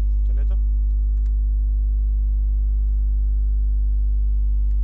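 Steady low electrical mains hum on the recording. There is a brief voice sound near the start and two faint key clicks, one at about a second in and one near the end.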